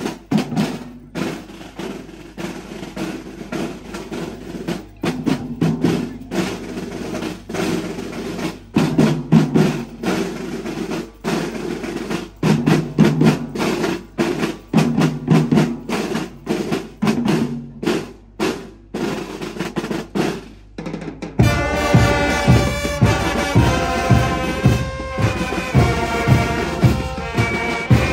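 School marching band's drum line of snare and bass drums playing a marching cadence. About 21 seconds in, the brass and saxophones come in and the full band plays over a steady bass drum beat.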